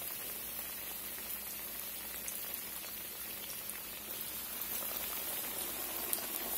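Hot oil sizzling and crackling steadily around flour-breaded cube steaks frying in a cast iron skillet. The sizzle grows a little louder about four seconds in as another steak is laid into the oil.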